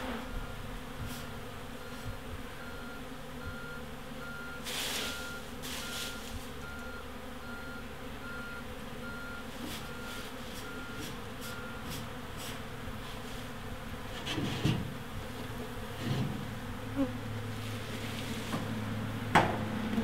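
Honeybee swarm buzzing steadily, with scattered knocks and taps as the bee box is tapped to shake bees loose; the loudest knock comes near the end.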